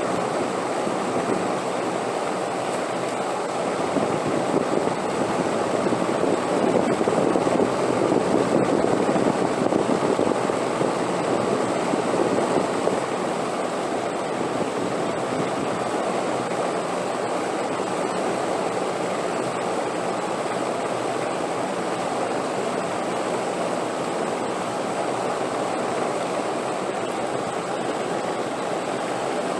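Wind blowing steadily, a continuous rushing that swells for several seconds in the first half and then settles back to an even level.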